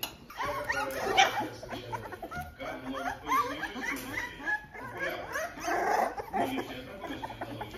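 A litter of three-week-old American Staffordshire terrier puppies whimpering and squealing, with many short, high cries overlapping and sliding up and down in pitch.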